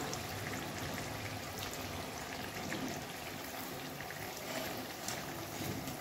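Yeast donuts deep-frying in hot oil: a steady sizzle with fine, rapid crackling of the bubbling oil.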